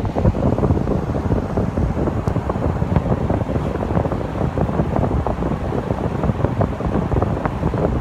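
Saijo Denki air conditioner outdoor unit's condenser fan running, blowing air out through the grille. The airflow buffets the microphone, giving a steady, rushing noise.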